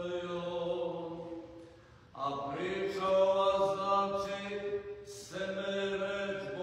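Slow vocal chanting with long held notes. One phrase fades out about two seconds in, the next begins right after, and there is another brief break about five seconds in.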